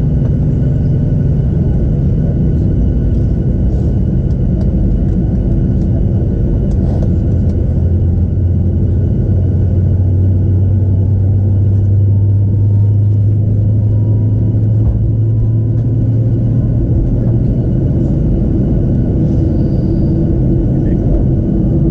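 Cabin noise of a Boeing 737-700 moving on the ground: a steady low rumble from the CFM56-7B engines at idle thrust, with faint steady whining tones over it. The low drone swells for several seconds midway through.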